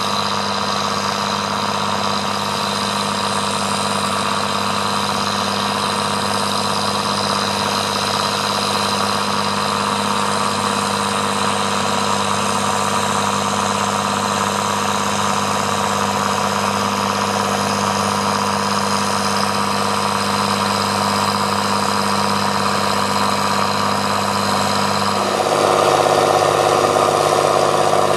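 Farm tractor's diesel engine running steadily. About 25 seconds in, its note shifts and it gets a little louder.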